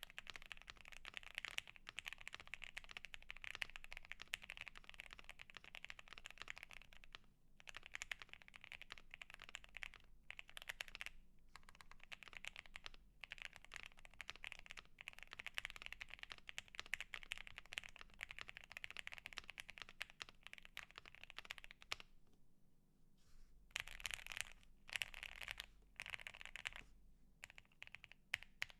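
Continuous typing on a Bakeneko60 mechanical keyboard with lubed Akko CS Jelly White linear switches and Evil Dolch ABS keycaps, tape-modded and filled with polyfill. It is a dense run of key clacks with brief pauses about seven and ten seconds in and a longer one of over a second about twenty-two seconds in.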